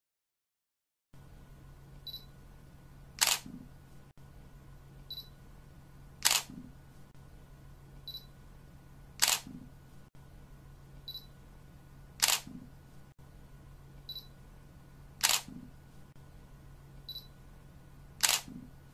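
Camera shutter clicking six times, about every three seconds, each click about a second after a short high focus beep. A faint low steady hum runs underneath.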